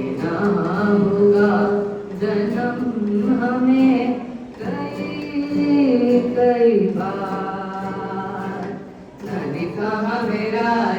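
Students singing a song, in long held phrases with brief pauses between them.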